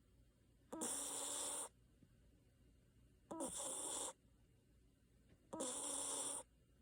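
Basenji dog snoring in its sleep: three snores about two and a half seconds apart, each about a second long.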